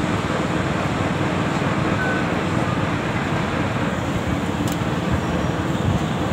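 Large pot of soup at a rolling boil over a wood fire, bubbling steadily.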